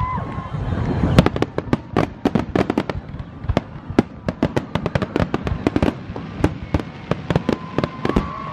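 Aerial fireworks bursting in rapid succession: many sharp cracks and booms, some overlapping. A thin whistling tone is heard at the start and again near the end.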